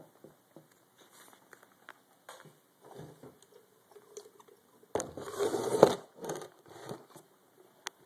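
A very small coffee grinder crunching a few whole coffee beans: scattered cracks and crackles, then a louder, denser stretch of grinding about five seconds in, lasting about a second, as the beans are crushed against hefty resistance.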